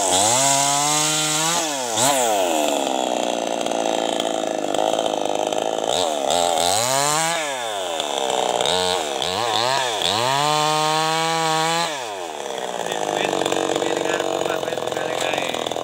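New West 588 two-stroke chainsaw revving up and dropping back several times. Between the revs it is held at high speed for several seconds, its pitch sagging slightly under load as it cuts into the felled teak tree. It settles to a lower, steadier speed near the end.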